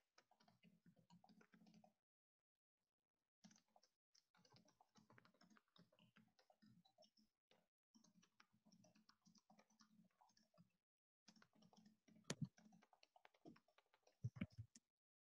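Faint typing on a computer keyboard heard over a video call: runs of quick key clicks that cut out abruptly for a second or so at a time, with a few louder knocks about twelve and fourteen seconds in.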